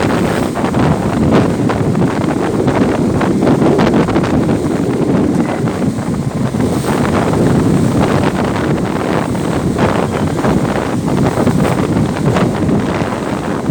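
Strong wind buffeting the microphone: a loud, steady low rumble with quick crackles all through.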